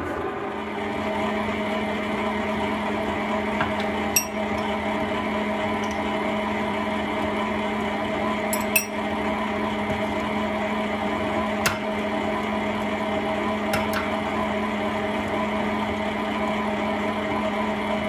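Electric stand mixer running at a steady speed, its beater turning flour and butter in a stainless steel bowl, with a few sharp clicks along the way.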